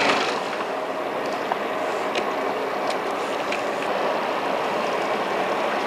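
Fishing boat's engine running steadily at low revs under a steady hiss of water and wind, with a few faint ticks.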